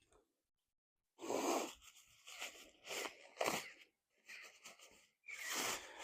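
A dog sneezing over and over: about six short, noisy bursts at uneven intervals, starting about a second in.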